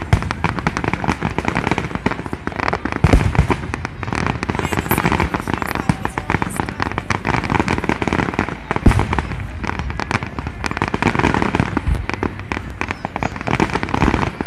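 Fireworks display: a steady run of overlapping bangs and crackling from aerial shells, with a few heavier booms spread through.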